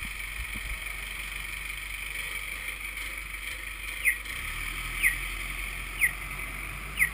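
Pedestrian crossing signal chirping: short, falling chirps, one a second, starting about four seconds in, over steady street traffic noise. The walk phase has begun.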